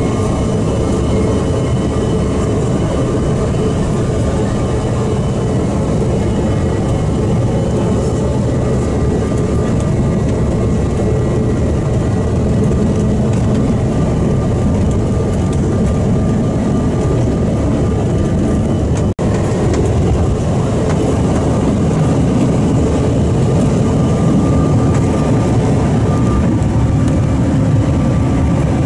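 Jet airliner engine and airflow noise heard inside the passenger cabin: a loud, steady rush with faint steady engine tones. It breaks off for an instant about two-thirds of the way through, then carries on.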